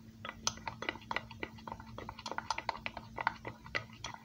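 Spoon stirring a thick powdered-sugar glaze in a white ceramic bowl, clicking quickly and irregularly against the bowl.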